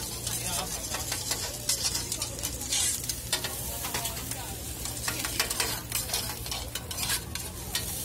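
Shredded potato sizzling on an oiled flat-top griddle, with many sharp clicks and scrapes of metal tongs against the pots and griddle. A steady low hum runs underneath.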